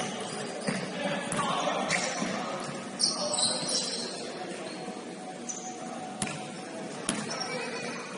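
Basketball game in a gym: the ball bouncing on the hardwood floor in a few irregular thuds, with sneakers squeaking about three seconds in, in an echoing hall.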